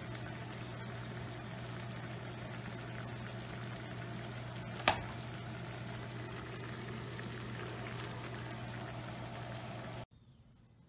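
Pan of butternut squash blossoms and greens boiling in water, a steady bubbling over a steady low hum. A single sharp click about five seconds in, and the sound cuts off abruptly near the end.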